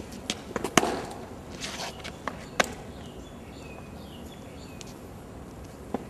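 Scattered sharp clicks and knocks, the loudest about a second in, over a steady outdoor background, followed by a few faint high chirps.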